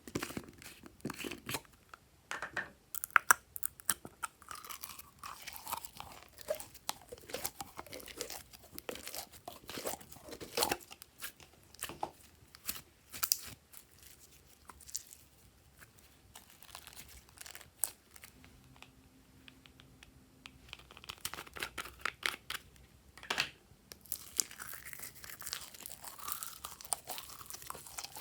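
Glossy slime being squished and stretched by hand: a run of sticky clicks, pops and crackles, sparser in the middle and busier toward the end.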